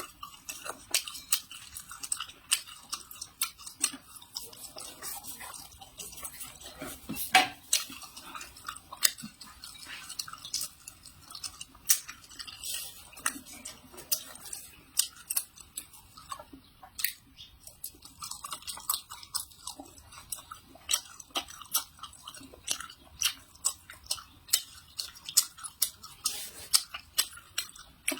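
Close-miked eating sounds: chewing, with frequent sharp, irregular clicks of utensils against dishes.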